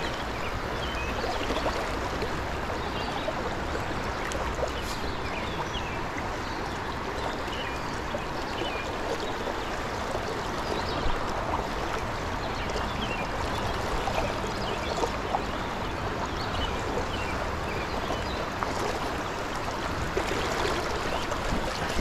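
Fast water of a rocky mountain trout stream rushing steadily, with scattered small splashes and gurgles.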